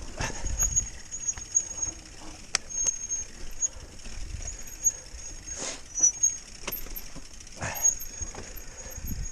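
Mountain bike rolling over rough ground, with rattling, clicks and knocks from the bike and an on-and-off high thin squeal.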